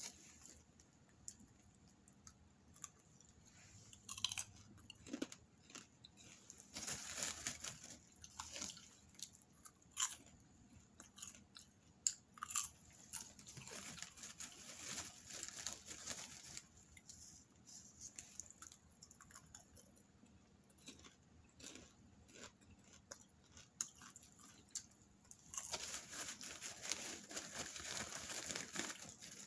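Popcorn being chewed close to the microphone: irregular crunches and crackles, with longer rustling stretches a few times as a hand reaches into the plastic popcorn bag.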